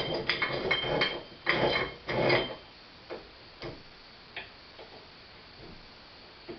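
Metal parts of a Corona corn mill clinking and rattling as they are worked into place: a quick run of knocks and clatter with a slight metallic ring for the first two and a half seconds, then a few single light clicks.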